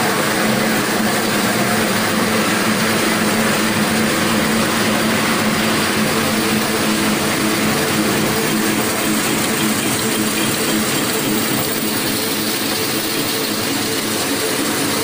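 Fully automatic double-colour, double-embossing napkin-making machine running steadily: a continuous mechanical din with a steady low hum, unchanging throughout.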